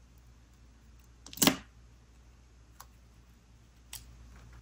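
Paper stickers and planner pages being handled: one short, louder noise about one and a half seconds in, then two faint clicks.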